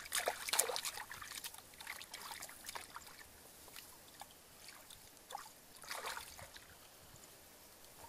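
Shallow muddy water splashing and trickling as hands grope and grab for fish in it. The splashes come irregularly, the loudest in the first second and another about six seconds in, with softer dribbling between.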